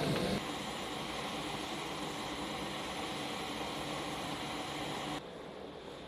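Steady aircraft noise around a C-130J Super Hercules, an even rush with a faint hum. It drops abruptly in level about half a second in, and again near the end to a quieter rush like wind.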